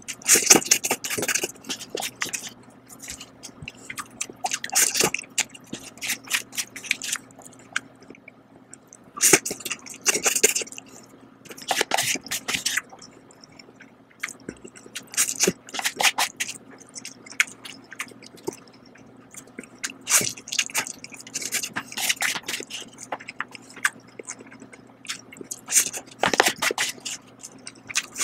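A person slurping instant noodles in repeated bursts of about a second each, with wet chewing in the quieter stretches between.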